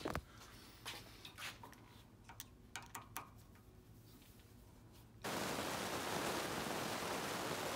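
Small metallic clicks and taps as a screwdriver works on brass plumbing fittings in a bench upright. About five seconds in, a loud, even hiss starts abruptly and runs on steadily.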